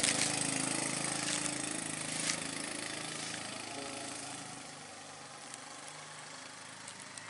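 A vehicle engine running and fading away over about five seconds, as if driving off.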